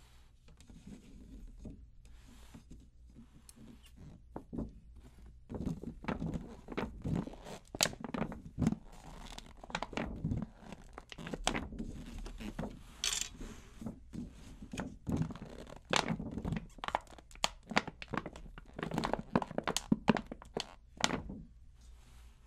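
Hands handling a 10-inch tom fitted with a new clear Evans head, rubbing and pressing on the plastic head and shifting the shell and rim: light rubbing at first, then from about five seconds in a busy run of soft thunks, crinkles and scrapes.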